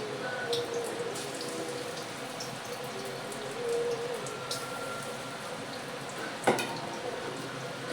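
Chicken pakoras deep-frying in mustard oil in a kadai: a steady sizzle with scattered crackling pops, and one sharp knock about six and a half seconds in.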